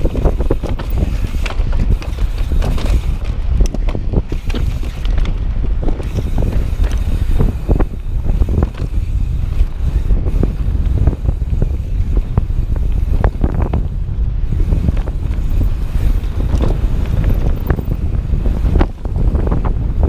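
Wind buffeting the microphone on a fast mountain-bike descent, with the bike's tyres and frame rattling and knocking over rough trail.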